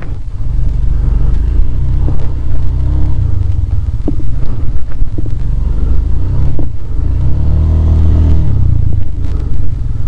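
Motorcycle engine revving hard under load in two long surges, about two and eight seconds in, as the bike labours through a stretch of stuck, muddy track.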